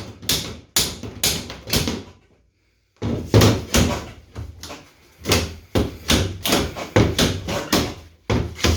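Repeated hard blows knocking on a plywood shipping crate as it is pried and hammered open, about two to three strikes a second. The strikes break off briefly a little after two seconds in, then carry on.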